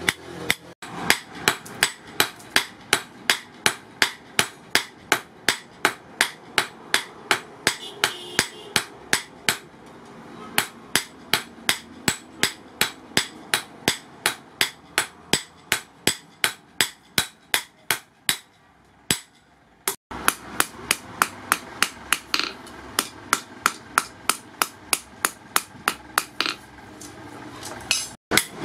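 Hand hammer beating a hot steel sword blank, cut from a motorcycle brake rotor, on a steel anvil. The sharp metallic blows come in a steady rhythm of about three a second, with a pause of a second or two about two-thirds of the way through.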